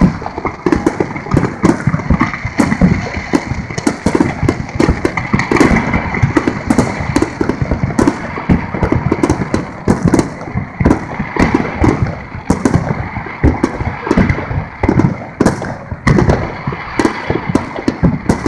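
Fireworks display: a dense, irregular run of shell bursts and crackling bangs, several a second, without a break.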